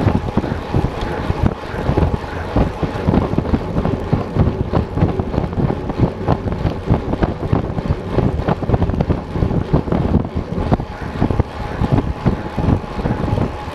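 Wind buffeting a bike-mounted action camera's microphone at around 28 mph, a loud, gusty rumble.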